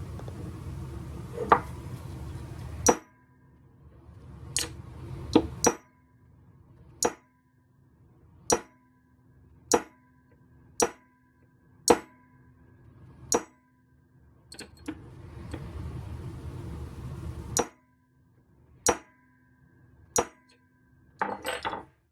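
A hammer striking a cold chisel against the steel bar of an F-style bar clamp laid on an anvil, notching the bar's edge so the clamp's sliding jaw can grip. It gives a steady run of single sharp metallic blows about every second and a half, each leaving a short ring, with a quick flurry of lighter knocks near the end.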